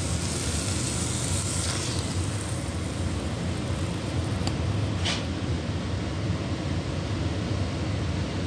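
Beaten eggs poured into a hot frying pan of vegetables, chicken and potato. There is a steady low hum under a light frying hiss that is brighter for the first couple of seconds, and a single click about five seconds in.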